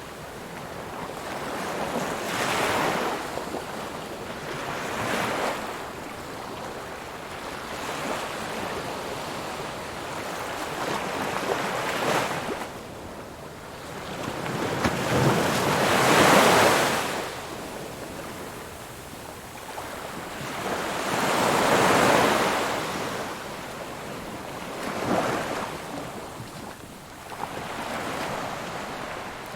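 Ocean waves breaking and washing up the shore, swelling and ebbing every few seconds, with the biggest surges about halfway through and again a few seconds later.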